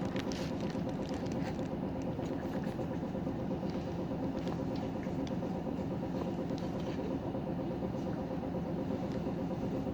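City bus engine heard from inside the passenger cabin, a steady drone with faint rattles.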